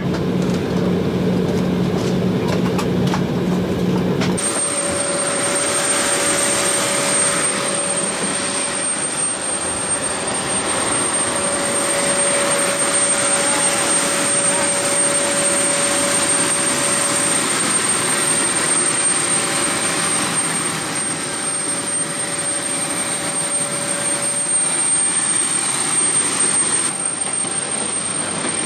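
Steady cabin hum of a jet airliner taxiing. About four seconds in it cuts to louder jet noise out on the apron: a steady rushing with a high, steady whine.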